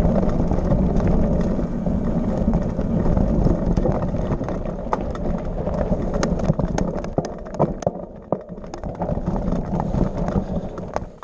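Off-road bike rolling over a rocky dirt trail: a steady rumble of tyres and wind, with frequent clicks, knocks and rattles from stones and the bike. The knocks come more often in the second half.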